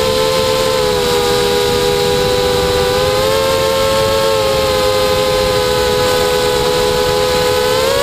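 FPV quadcopter's electric motors and propellers whining steadily in flight, several close tones from motors running at slightly different speeds. The pitch dips and swells gently with throttle and rises near the end.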